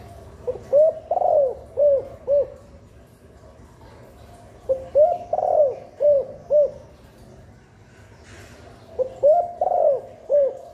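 Spotted dove cooing: three phrases about four seconds apart, each a run of four or five short rising-and-falling coos with a longer, louder note near the middle.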